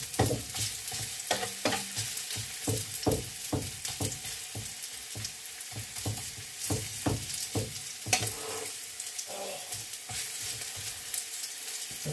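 Food frying in oil in a frying pan on a gas hob, with a steady sizzle. A plastic spatula scrapes and taps the pan about twice a second, and the strokes grow fewer after about eight seconds.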